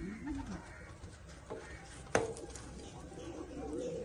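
Pigeon cooing in low notes that rise and fall, once at the start and again near the end, with a single sharp click about two seconds in.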